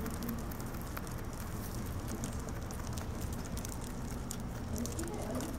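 A rabbit chewing a lemongrass stalk: rapid, crisp crunching clicks over a low, steady background hum.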